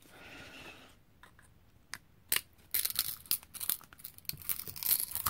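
Pliers gripping and wrenching the metal bayonet cap off an LED bulb's plastic body. A couple of single clicks about two seconds in, then a rapid, irregular run of sharp clicks as the cap is worked loose.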